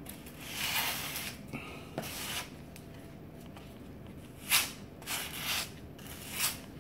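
Plastic spatula scraping Fusion Pro grout across tile joints: a series of short scrapes, the sharpest about four and a half seconds in.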